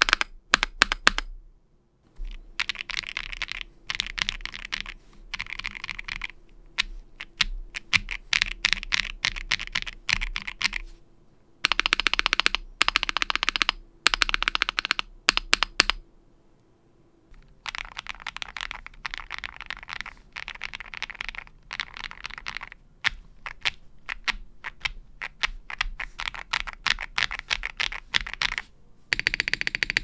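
Fast typing on a mechanical keyboard fitted with Akko V3 Cream Yellow linear switches, first stock and then lubed, in an aluminium-plate AI03 Vega. The switches clack in dense runs of keystrokes, in several takes separated by short pauses.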